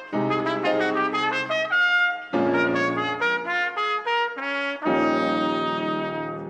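Trumpet and grand piano playing a tarantella: quick runs of short, bright trumpet notes over piano chords, in phrases broken by brief gaps. About five seconds in, a long held chord begins and fades away.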